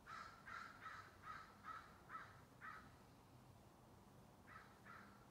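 Crow cawing faintly: a quick run of about seven harsh caws, then a pause, then two more caws near the end.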